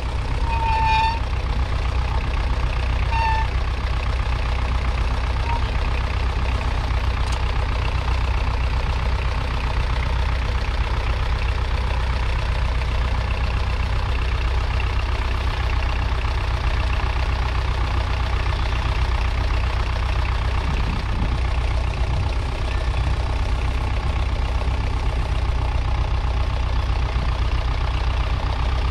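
1961 Massey Ferguson 35's 2.5-litre four-cylinder diesel engine running steadily under load as the tractor pulls a two-furrow mounted plough.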